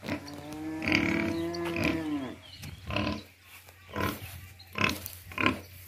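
Pigs calling: one long, drawn-out pitched call of about two seconds that falls away at its end, then a string of short calls about once a second.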